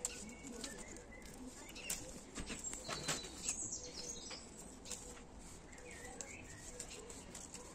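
Faint clicks and rustles of hand pruning secateurs snipping and handling rose leaves, with a few birds chirping in the background.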